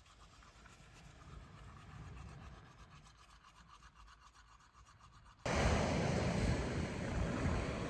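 Faint, fast, rhythmic rubbing or scratching. About five seconds in it cuts off sharply and strong wind buffets the microphone with a loud, gusty roar.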